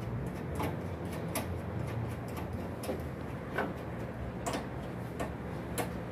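Light, sharp clicks and taps, about seven at uneven gaps, from hands working on a wall-mounted air-conditioner unit, over a steady low hum.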